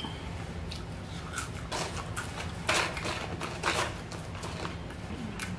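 Close-up chewing and mouth sounds of someone eating french fries, in irregular bursts with a few louder ones around the middle, over a steady low hum.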